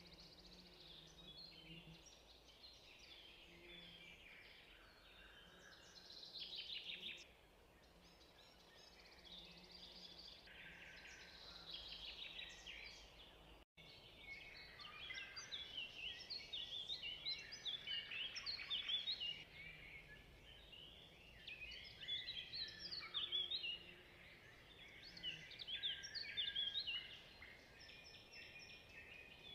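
Songbirds singing, many short overlapping chirps and trills at once, busier in the second half, with a brief dropout in the sound about halfway through.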